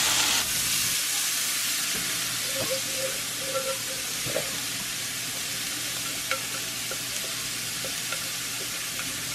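Steady frying sizzle in a cast-iron skillet: bacon pieces sizzling as they are turned with tongs, then shredded cabbage frying for bacon fried cabbage. The sizzle is a little louder in the first half second, with a few faint clicks along the way.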